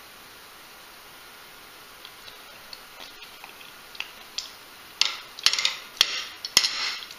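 Metal spoon and tableware clinking as they are handled: a few light clicks, then a quick run of sharper clatters in the last two seconds.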